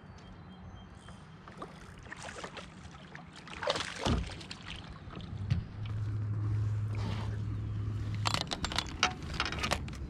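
Noises on a fishing kayak while a bass is being landed: scattered knocks, a steady low hum for about three seconds in the middle, and a quick run of clicks near the end.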